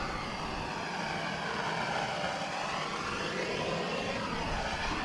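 Handheld gas blowtorch burning with a steady rushing hiss as its flame is played around the inside of a wooden beehive box, scorching it to kill wax moth and other pests.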